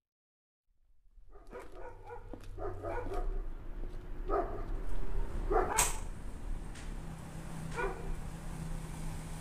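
A dog barking repeatedly, starting about a second in, over a low steady background hum, with a sharp click just before the sixth second.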